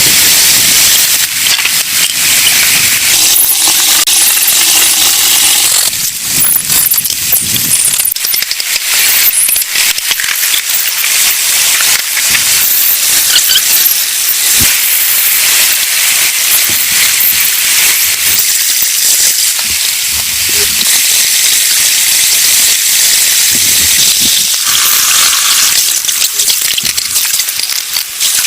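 Heavy rain falling steadily: a loud, dense hiss with many small drop impacts.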